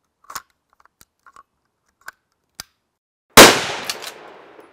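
A single rifle shot from a Chapuis ROLS straight-pull rifle about three and a half seconds in, sharp and very loud, its report ringing out and fading over about a second. A few faint clicks come before it.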